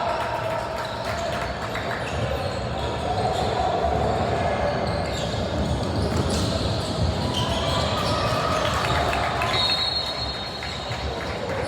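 Basketball game in play in a gym: the ball bouncing on the court amid players' movement and background voices, echoing in the hall.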